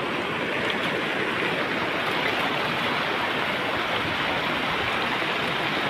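Floodwater rushing in a steady, unbroken stream of noise, from water running high after extremely heavy rain.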